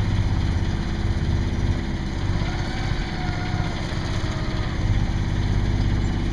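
Sailboat's auxiliary engine idling steadily, with an even low hum.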